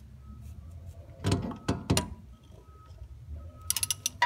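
Metal tools clanking under the car, three sharp knocks a little over a second in, then a quick run of hand-ratchet clicks near the end as the ratchet on the flange puller is worked.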